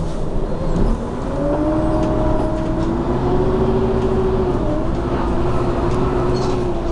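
Renault R312 city bus heard from inside the passenger cabin while under way: a drivetrain whine over the engine's rumble, rising in pitch over the first few seconds as the bus picks up speed, then holding steady with a brief dip near five seconds.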